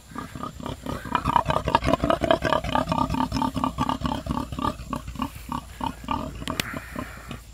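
Domestic pig grunting close up: a rapid run of short grunts, about five a second, tailing off near the end.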